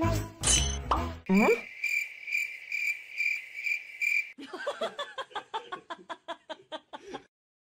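Background music ends about a second in, followed by a quick rising swoop. Then comes a steady cricket-chirping sound effect for about three seconds that cuts off abruptly. A run of quick light notes follows, about five a second, before the sound drops out.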